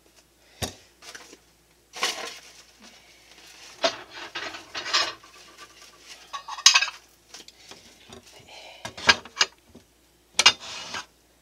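Kitchen handling noises: a string of separate knocks and clatters of dishes and utensils being moved about on a cutting board, ending with a rectangular plate set down on the board.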